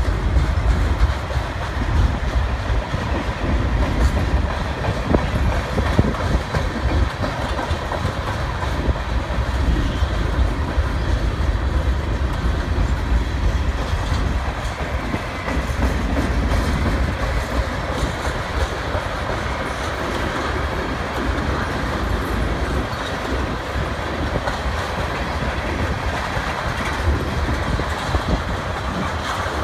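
Freight train of tank cars, autoracks and covered hoppers rolling past, its steel wheels rumbling on the rails in one steady, continuous run of sound.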